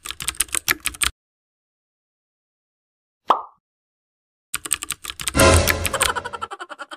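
Keyboard-typing sound effect for text appearing on screen: a quick run of clicks during the first second, then a second, denser run from about four and a half seconds in that is loudest around six seconds. In between there is one short sharp sound about three seconds in.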